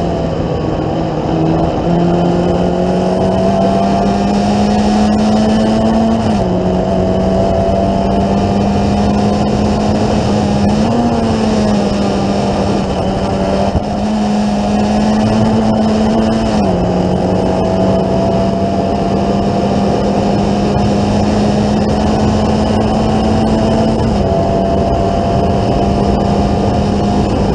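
Formula Ford 1600 race car's Ford Kent four-cylinder engine running hard, recorded onboard from the open cockpit. The engine note holds high with a few sudden steps in pitch, about a quarter of the way in, around halfway and near the end, over a steady rush of noise.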